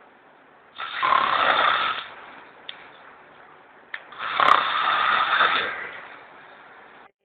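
A person snoring loudly: two long snores about three and a half seconds apart, each lasting just over a second.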